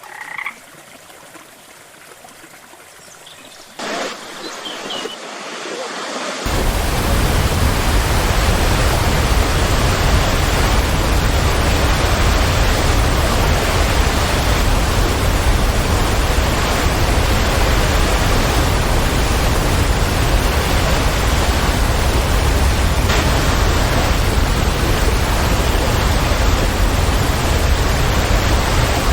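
A few short bird chirps over a faint rush of water, then, about six seconds in, a loud, steady rush of a waterfall cuts in abruptly and continues, heavy in the low end.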